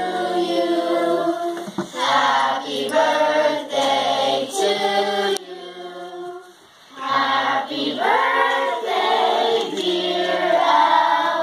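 A group of children singing together in chorus, held notes in short phrases, with a brief pause about halfway through.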